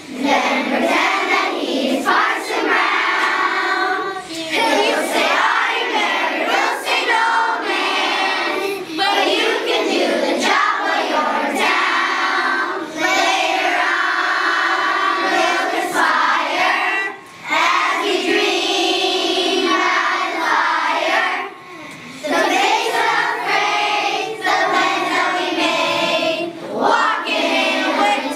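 A group of young children singing together, pausing briefly twice in the second half.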